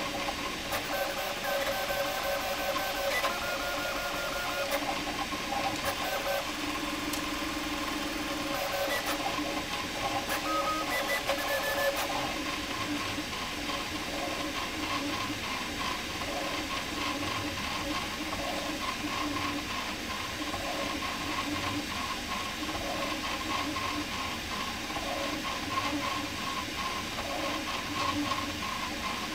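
Prusa MK4 3D printer printing fast under input-shaping firmware: the stepper motors whine in short tones that shift in pitch as the head and bed move, over a steady hiss.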